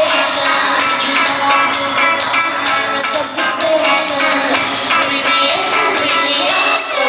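Loud live pop music from a concert sound system: the band plays a steady dance beat while a woman sings the lead into a handheld microphone.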